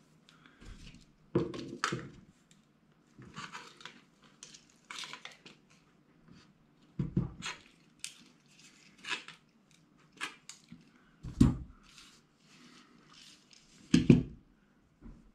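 Irregular clicks, clatters and knocks of parts and hand tools being handled and set down on a workbench mat. Several heavier thumps come about a second and a half in, then around seven and eleven seconds in, and the loudest near the end, as a bearing-housing plate is put down on the bench.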